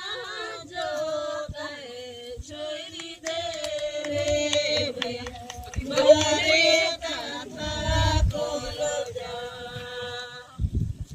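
Voices singing a slow, chant-like folk melody with no instruments. The singing breaks off shortly before the end, and a low rumbling noise takes over.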